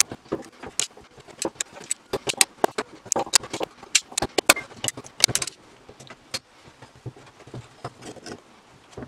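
Irregular metallic clicks and clinks of steel locking pliers against the rusty iron parts of a Millers Falls No. 118 breast drill as they grip and work at a part during disassembly. The clinks come thickest in the middle and thin out after about six seconds.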